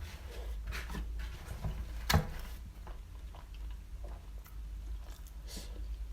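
Close-up eating sounds: chewing and mouth noises over doner kebab meat, cheese and chips, with scattered small clicks and one sharper click about two seconds in, over a steady low hum.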